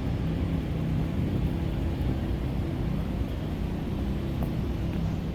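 Steady low rumble of city street traffic, with the hum of vehicle engines and no sharp events.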